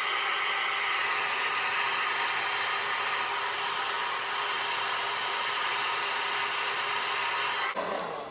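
Handheld hair dryer blowing steadily on its cool-shot setting, drying the glue under a wig's lace front; it switches off abruptly shortly before the end.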